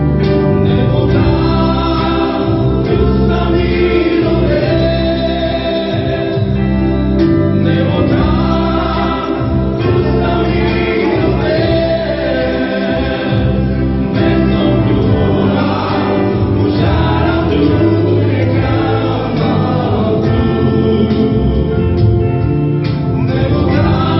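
Live amplified worship music: a church band with electric guitar plays a gospel praise song while voices sing along.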